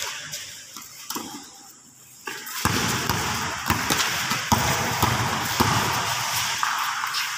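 Basketball bouncing on a concrete court: irregular thuds, several in quick succession while a player dribbles, over a steady noise that grows louder about two and a half seconds in.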